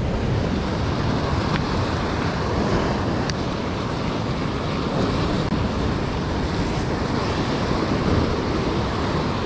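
Sea surf washing on the shore with wind on the microphone: a steady rushing noise.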